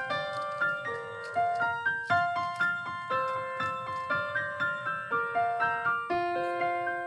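Background piano music: a light melody of single notes, about two a second.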